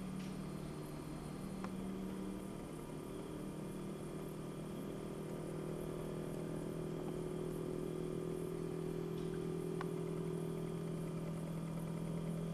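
A steady mechanical hum, like an engine idling, its pitch dropping slightly about two seconds in, with a couple of faint ticks.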